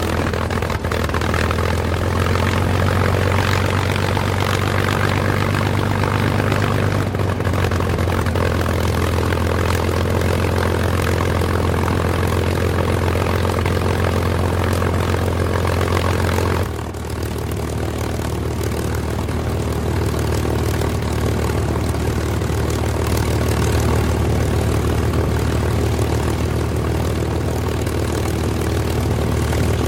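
Propeller fighter's piston aircraft engine running with a steady low drone. About 17 s in the sound cuts to a slightly different, briefly quieter drone that then carries on steadily.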